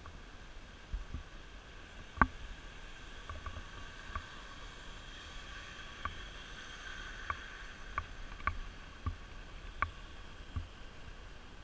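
Camera shutter clicking several times, sharp single clicks, the loudest about two seconds in and a quicker run of them near the end, over faint street noise with a van driving past.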